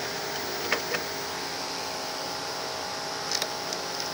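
Light clicks and taps of an antenna coaxial cable connector being fitted to the rear panel of a satellite receiver: two a little under a second in and two more near the end, over a steady hum.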